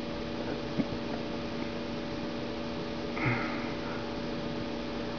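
Steady electrical hum and hiss from the recording setup, with a faint click about a second in and a short sniff or intake of breath about three seconds in.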